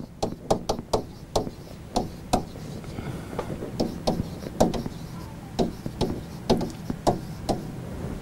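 Pen tapping against the screen of an interactive whiteboard while writing in block capitals: a string of short, sharp, irregular taps, about two or three a second.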